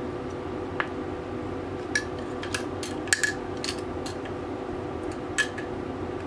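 Small metal and plastic parts of a Tokyo Marui Hi-Capa airsoft pistol clicking and clinking as they are handled and fitted together: a scatter of sharp taps, the loudest a quick pair about three seconds in, over a steady background hum.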